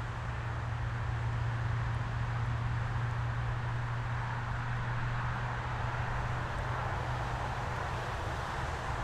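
Wood-Mizer LX25 portable band sawmill running steadily: a constant low engine hum with an even hiss above it, with no change in pitch or level.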